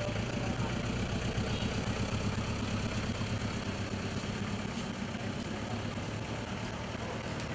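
Diesel engine of a small Hyundai pickup truck running on biodiesel, a steady low engine note at low revs.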